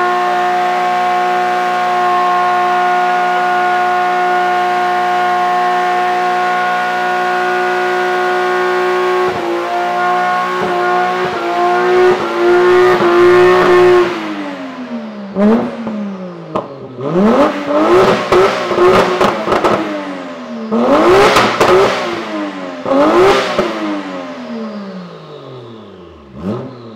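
BMW E36's swapped Toyota 1JZ straight-six held at steady high revs during a burnout, with a brief stumble about nine seconds in. Midway the revs drop, and the engine is then blipped up and down half a dozen times, with sharp cracks during some of the blips, before the revs fall away near the end.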